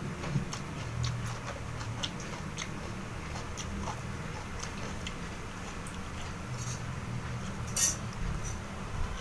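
A person eating: close-up chewing and mouth sounds with scattered small clicks and smacks, one louder smack about three-quarters of the way through.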